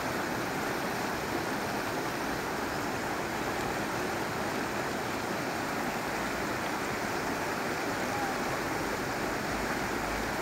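Fast-flowing river water rushing in a steady, unbroken wash.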